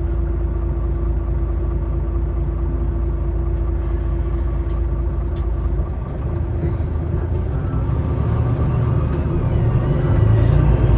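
Interior of a city bus: a steady hum with a held tone, then from about six seconds in a low drivetrain and road rumble builds and grows louder as the bus gets moving.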